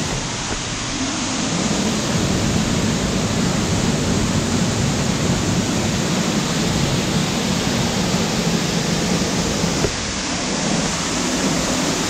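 Waterfall pouring down into a shallow pool, a steady, loud rush of falling and splashing water.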